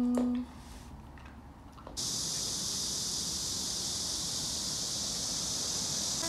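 A loud, steady chorus of cicadas, an even high-pitched buzz loud enough to sting the ears, coming in abruptly about two seconds in. Before it, a drawn-out voice ends and there is a short quiet.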